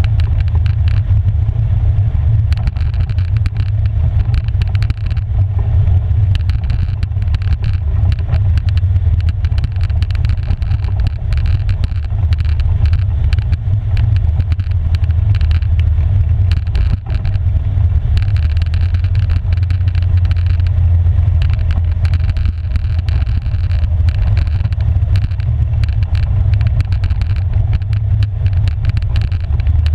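Polaris 570 ATV engine running steadily while the quad rides along a gravel trail, heard from a camera mounted on the machine: a loud, constant low rumble with many small ticks and rattles from gravel and the chassis.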